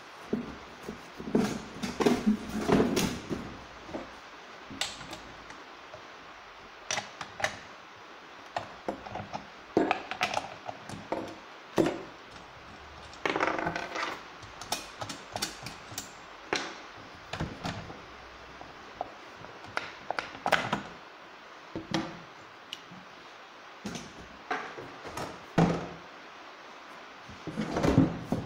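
Irregular clicks, knocks and clatter of a Husqvarna 365 X-Torq chainsaw and its metal and plastic parts being handled on a wooden table while the clutch cover is taken off, with small clusters of rattling near the start, midway and near the end.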